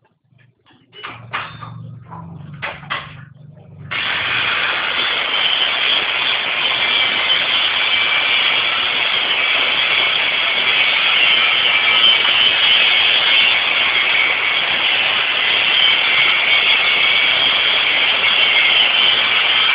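Concrete block and paving press machine starting up: a low hum and a few knocks, then about four seconds in a loud, steady machine noise comes on suddenly and keeps running.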